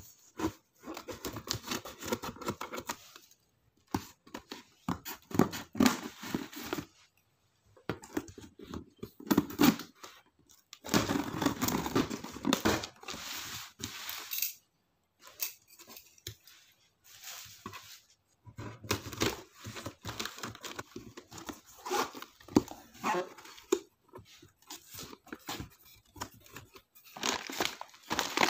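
Packaging being torn open and crinkled while chocolates are unwrapped, in irregular bursts of rustling with short pauses between them.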